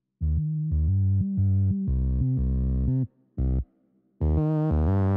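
Outro background music: a synthesizer bass line playing a run of short, separate notes with brief gaps between them.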